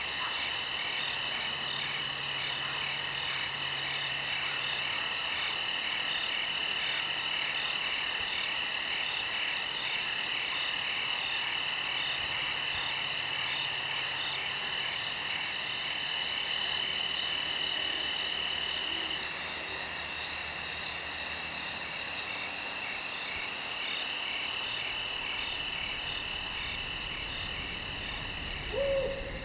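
Night insect chorus of crickets trilling steadily in several high, even tones, with one low falling call near the end, like an owl's hoot.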